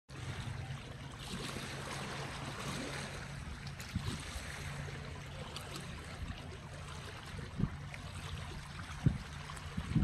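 Seawater washing and lapping against shore rocks, a steady splashing hiss with a faint low hum underneath and a few short low thumps.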